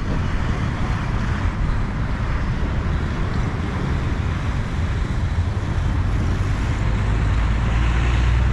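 Road traffic noise: vehicles passing close by, with a low engine drone that builds up over the last few seconds as a heavier vehicle comes near.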